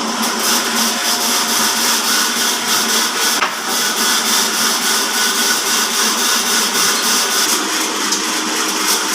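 Horizontal band sawmill driven by an electric motor, running steadily with its blade cutting through wood.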